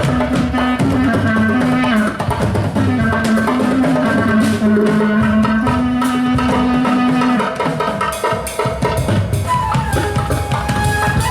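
Live band music: drums and percussion under a melody. A low line of held notes stops about seven and a half seconds in, and a higher held note comes in near the end.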